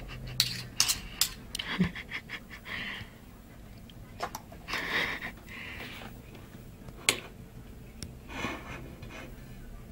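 Metal knife and fork clicking and scraping against a plate as meat is cut, in a quick cluster of clicks in the first two seconds and a few more later. A dog panting and breathing in short hissing breaths.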